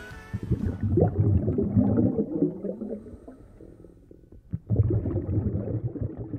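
A low, irregular gurgling rumble in two stretches: it fades away a little past halfway, then comes back near the end.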